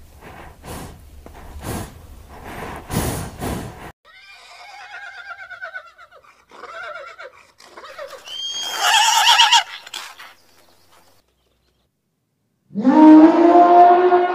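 Three animal sounds in turn. First, rough noisy bursts from alligators. Then a cat meowing three times, the last meow the loudest. After a short silence, near the end, an Asian elephant trumpeting loudly.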